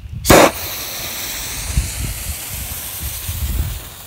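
Lit fuse of a small novelty firework hissing steadily, starting with a short loud burst as it catches and dropping away near the end.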